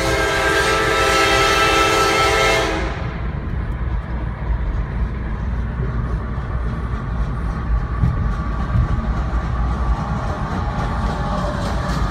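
CSX AC44CW diesel locomotive's air horn sounding one long blast of about three seconds, heard from inside a car pacing it. It then gives way to a steady low rumble of the moving locomotive and car.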